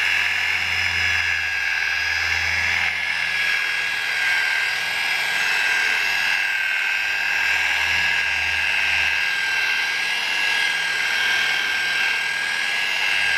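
Electric rotary car polisher running at a slow speed setting with a wool pad, its motor giving a steady high whine as the pad works coarse cutting compound across the paint to remove fine scratches.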